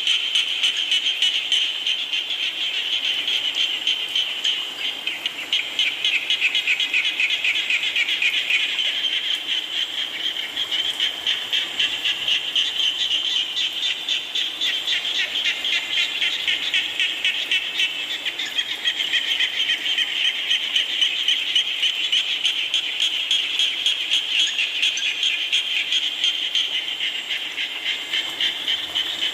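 Dense chorus of many frogs calling together in fast, pulsing trills, high-pitched and continuous, swelling and easing slowly.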